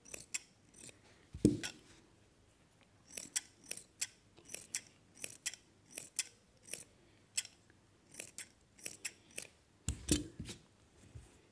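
Large steel tailor's shears snipping through fabric, a string of short sharp snips about one or two a second, with a dull thump on the table about a second and a half in and another near the end.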